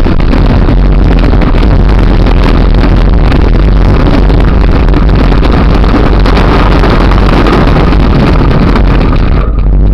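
Heavy wind buffeting on an action camera's microphone, mixed with the rattle of a mountain bike rolling fast over a gravel track on a descent. It is loud and steady, and it thins out slightly just before the end.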